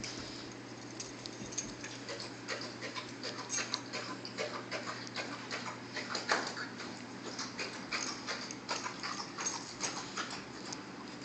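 A dog playing roughly with a giant stuffed plush toy: a busy, irregular run of small clicks, scuffs and rustles as it mouths and shoves the toy around, loudest about halfway through.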